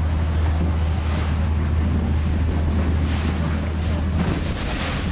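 Steady low drone of an open canal tour boat's engine under way, with wind gusting on the microphone a few times.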